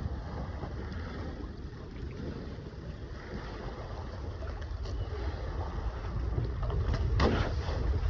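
Wind rumbling on the microphone over water rushing past the hull of a sailing multihull under way at sea, with a short splash about seven seconds in.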